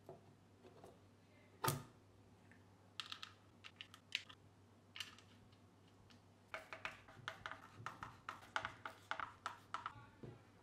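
Small hard clicks and taps of a clear acrylic control plate and small screws being handled on a plywood speaker panel: one sharp click just under two seconds in, a few scattered clicks after it, then a quick run of light clicks in the second half as the screws are set and driven.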